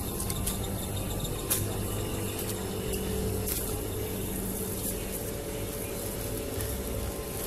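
Steady hum and hiss of a shop's refrigerated display cases and air conditioning, with a few faint clicks.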